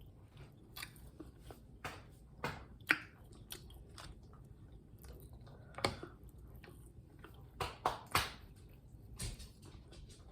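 Close-miked chewing and biting of food, with irregular sharp crunches and smacks every second or so.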